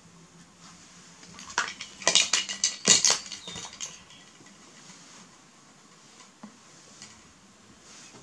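Hard plastic toys clattering and knocking together, a quick run of clicks and rattles lasting about two seconds, starting about a second and a half in, as a baby monkey scrambles among them.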